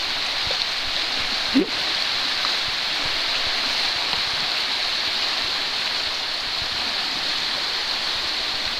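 Whitewater rapids rushing steadily, the churning water of a river wave, with a short rising sound about a second and a half in.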